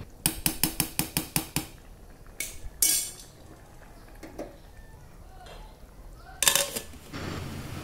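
Metal utensil clinking against a steel cooking pot: a quick run of about eight taps, some six a second, over the first second and a half, then a few short scraping noises later on.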